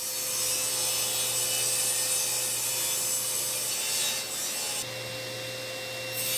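Table saw running and ripping rough lumber to width: the blade cuts through the wood with a continuous hissing saw noise over the steady hum and tone of the saw's motor.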